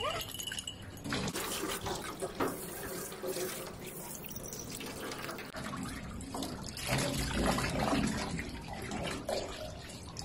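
Water running from a garden hose over a dog standing in a stainless steel sink, splashing into the basin.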